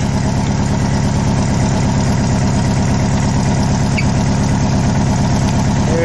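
Air-cooled flat-four engine of a VW Type 3 Fastback idling steadily.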